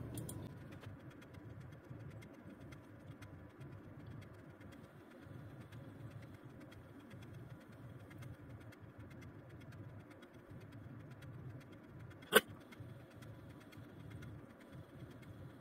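Quiet room tone near a running desktop PC: a faint, uneven low rumble with fine crackle, and one sharp click about twelve seconds in.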